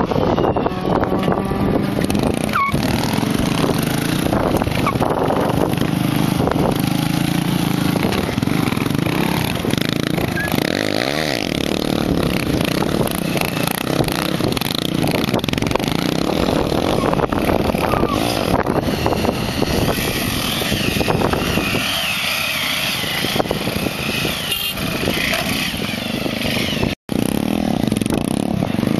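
Stunt motorcycle engines running and revving, their pitch rising and falling as riders pull wheelies, with one brief dropout near the end.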